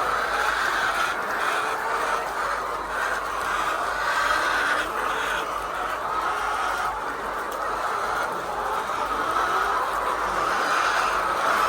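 Steady din of a large flock of hens, many birds clucking and calling at once.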